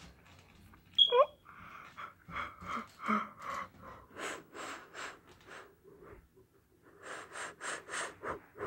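A person's voice: a sharp high squeal that falls steeply in pitch about a second in, then two runs of short breathy puffs, about three a second.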